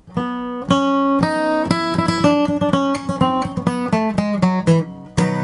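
Background music: an acoustic guitar picking a quick run of notes over a low bass line, starting suddenly out of silence.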